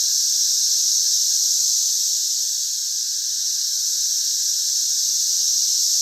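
Chorus of cicadas in the trees, a loud, steady, high-pitched buzzing drone with no let-up.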